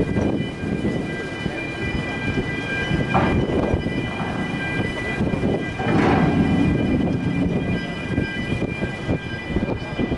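Strong wind buffeting the microphone in gusts over the rumble of the ferry's machinery, with a steady high-pitched whine of several tones.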